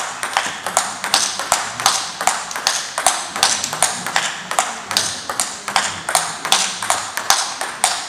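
Table tennis rally: the celluloid ball clicking off the bats and bouncing on the table in quick, even succession, about three hits a second.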